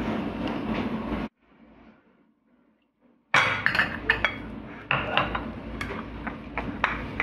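A hand mixing and kneading crumbly gram-flour dough in a bowl: rubbing and scraping with many small clicks against the bowl. About a second in, it drops to near silence for roughly two seconds, then resumes.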